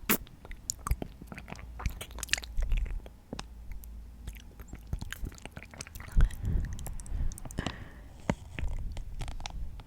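Close-miked chewing and biting of a snack, with many short, crisp clicks and crunches and wet mouth sounds in between.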